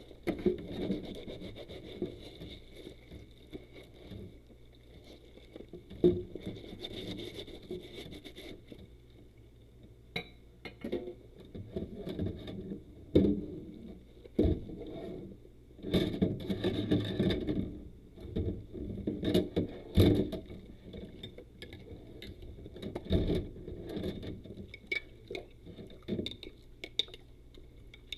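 Rubber dishwashing gloves rubbing and scrubbing in irregular strokes, with a few sharp knocks.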